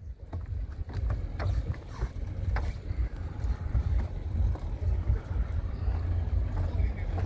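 Low, gusting wind rumble on the microphone, with scattered faint clicks and knocks.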